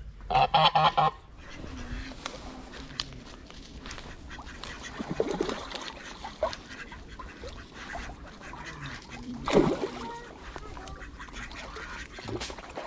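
A goose honking: a loud run of several harsh honks in the first second, then fainter single calls about five and about nine and a half seconds in.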